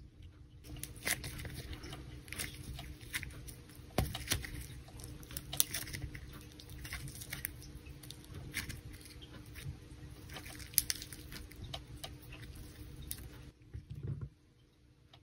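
Crunchy yellow foam dough (floam) squeezed and pulled apart by hand, a dense crackling and clicking of its tiny foam beads with a few sharper ticks. The crackling stops about a second and a half before the end.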